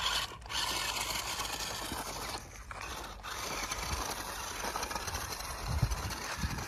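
Electric motors and gearboxes of a red toy RC rock crawler whirring as it climbs a dirt slope. The sound dips briefly a few times, and a few low thumps come near the end.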